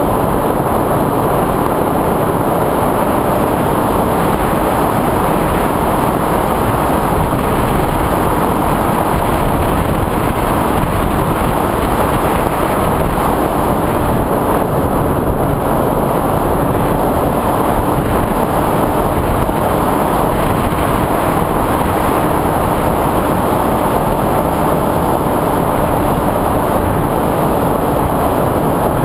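FPV drone's motors and propellers whirring steadily in flight, a loud even rush with a faint steady hum through it.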